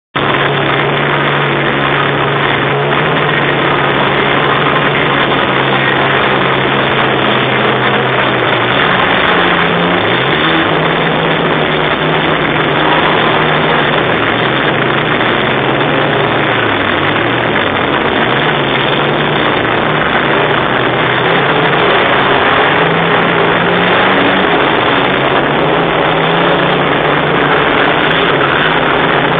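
Engine running loud and continuously at high revs, its low pitch drifting slowly up and down.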